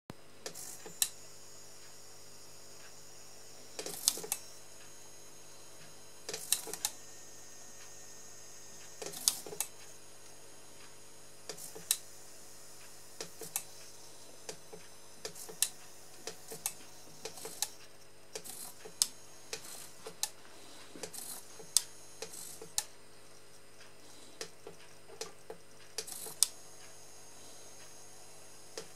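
Servo drives of a Märklin C-track symmetrical three-way turnout throwing the points: short buzzing whirs, each with a sharp click, and many lone clicks every second or two in between.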